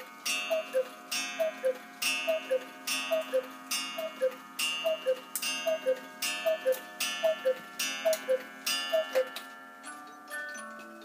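Black Forest cuckoo clock striking the hour: the falling two-note cuckoo call, repeated about a dozen times at an even pace, each call with a sharp metallic strike that rings on between calls. Near the end the clock's Swiss 36-note music box starts a melody.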